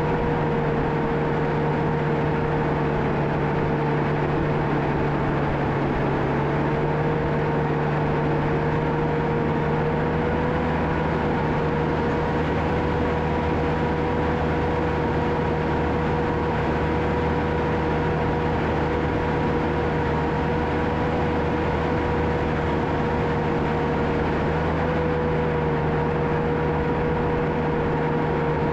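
John Deere 650K crawler dozer running steadily under work, a diesel drone with a constant high whine over it. The whine's pitch sags slightly a few seconds in and again near the end.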